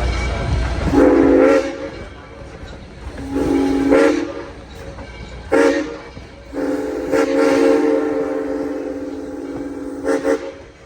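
Southern Railway 630's Nathan six-chime steam whistle blowing two long blasts, a short one and a final long one, the pattern of the grade crossing signal. Each blast sounds as a single steady chord.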